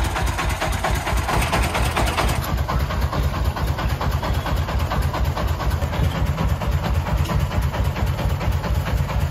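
Diesel engine of a three-wheeled công nông dump truck, swapped to a 40 hp unit, running steadily with a rapid, even chugging while the dump body is tipped.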